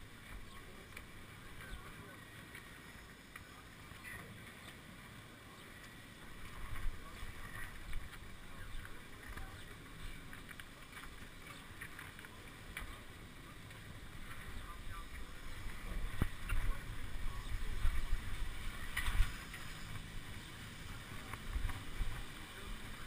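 Wind buffeting the microphone as a low rumble, with faint voices of people around and a few sharp knocks. The rumble grows louder about two-thirds of the way through.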